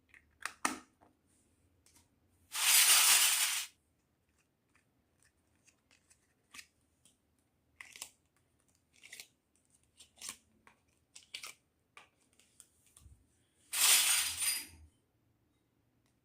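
Small plastic toy kitchen pieces clicking and tapping as they are handled, with two loud, even noises about a second long, one about three seconds in and one near the end.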